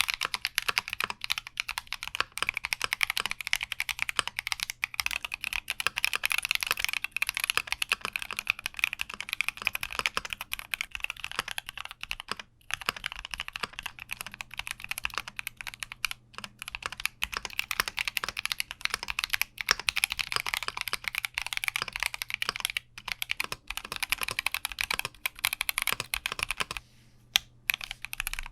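Fast, continuous typing on a Keychron Q60 mechanical keyboard: a dense stream of keystroke clacks with a few short pauses, thinning out near the end.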